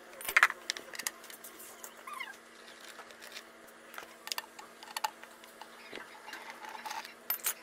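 Light clicks and knocks of metal parts being handled as a scooter's CVT cover is fitted back on, the loudest about half a second in. A short falling cry-like sound is heard about two seconds in.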